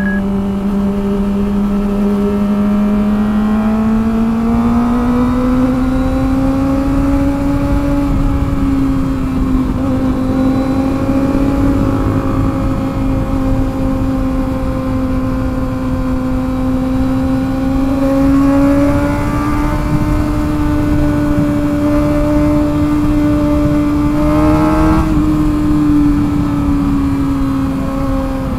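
Kawasaki ZX-25R's 250 cc inline-four engine running at steady high revs while riding. Its pitch climbs a little a few seconds in, then holds with small swells and a short blip near the end.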